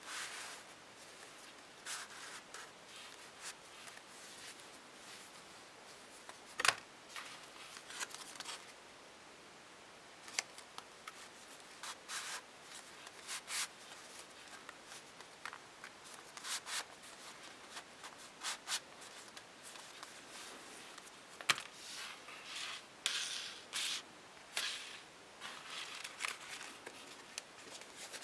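Folded white paper rustling and rubbing in irregular bursts as the interlocked units of an eight-piece transforming origami shuriken slide against each other, opening and closing between ring and star. A few sharper paper clicks stand out, the loudest about a quarter of the way in.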